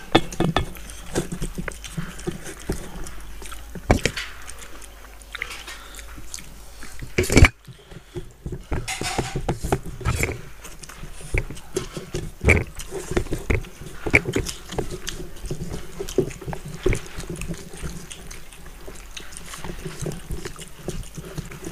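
Close-up wet chewing and lip-smacking of several people eating fish head curry and rice by hand, with irregular smacks, clicks and squelches of food being mixed and bitten. A single sharp knock about seven and a half seconds in.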